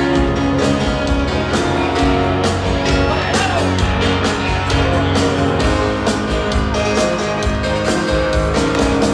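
Live rock band playing in a stadium, recorded from the crowd: full band music over a steady drum beat.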